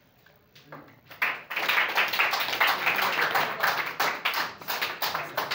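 A small group of people clapping by hand, starting about a second in and going on as fast, irregular claps.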